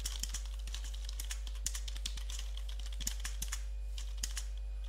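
Typing on a computer keyboard: a run of irregular, quick key clicks over a steady low hum.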